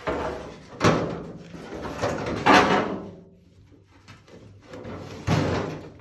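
Hard objects in a workshop being slid and shifted about: four sudden scraping, sliding clatters, the loudest about two and a half seconds in.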